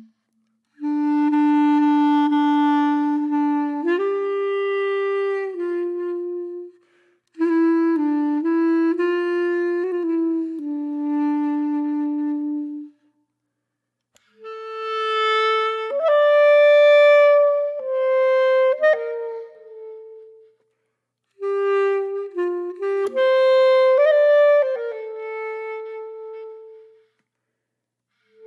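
Background music: a slow solo melody on a wind instrument, one long held note at a time, in four phrases with short silences between them.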